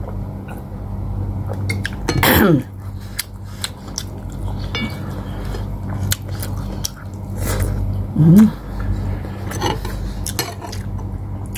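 Close-up eating sounds: chewing and a spoon clinking against plates and a bowl, over a steady low hum. About two seconds in, a loud vocal sound falls in pitch, and near eight seconds there is a short hummed sound.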